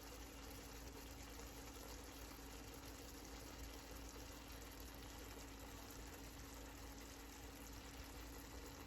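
Near silence: faint, steady background hiss with a low hum.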